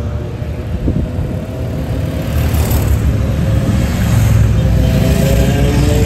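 A procession of motorcycles riding past at low speed, their engines rumbling and growing louder as the bikes draw near.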